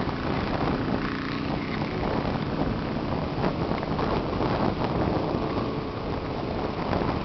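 Wind buffeting the microphone in a steady rumble, with a faint, even motor-like hum underneath.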